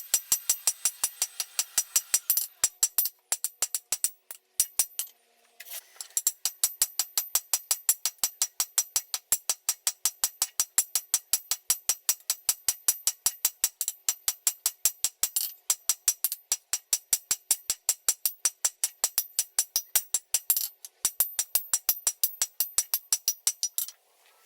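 Hammer striking hot steel bar stock on an anvil in a fast, even rhythm, each blow with a bright metallic ring, as the bar is forged down to square. The hammering breaks off briefly about five seconds in and again near the end.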